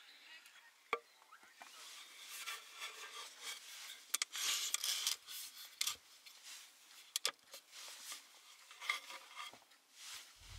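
Close handling noise: irregular rustling and rubbing, broken by scattered light clicks and taps, as things are moved about on a small wooden table.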